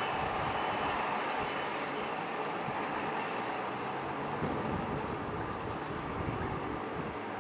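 Two class 55 Deltic diesel locomotives running coupled, their Napier Deltic two-stroke engines making a steady, unbroken din.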